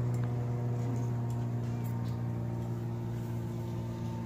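Steady low hum of a running engine, holding one constant pitch, with a few faint clicks over it.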